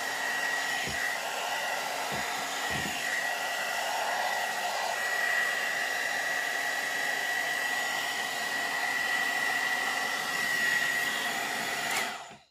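One-step hot air brush (hair dryer brush) running on its medium heat setting: steady blowing with a high whine, switched off near the end. On this setting it blows hot air and is not too quiet, not too noisy.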